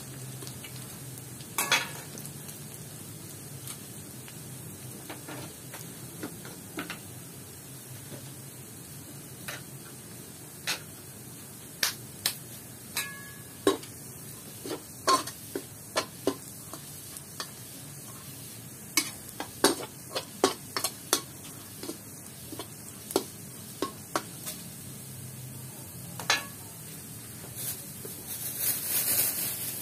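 Chopped garlic sizzling gently in a little oil in an aluminium wok, fried slowly until fragrant, with irregular sharp clicks and scrapes as a metal spatula stirs it against the pan. A louder hiss swells near the end.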